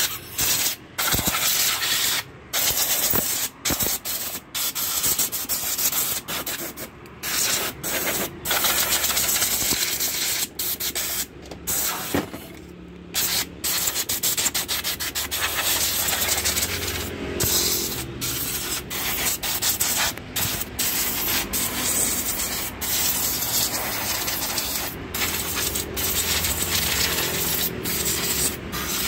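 Compressed-air blow gun hissing in long blasts, broken by many short pauses, as it blows dust out of a welding machine's power boards and heatsinks.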